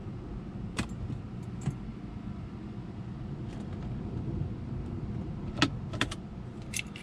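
A few short clicks in a BMW 335i's cabin over a steady low hum as the start button is pressed and the engine does not crank, which the owner suspects is a dead battery.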